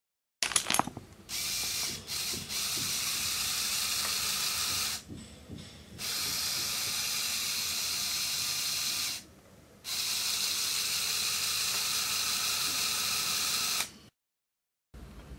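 Motor-driven Lego sliding-door mechanism running: a steady whir of motor and gears in three stretches of about four seconds, each starting and stopping abruptly, after a few clicks at the start.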